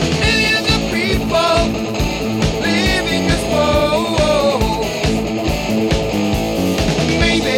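Hard rock song: a male voice singing short lines over electric guitar, bass and a steady drum beat.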